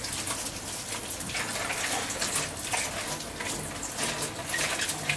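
Kitchen tap running into a sink while dishes are washed under it, with scrubbing and several short clinks of dishware.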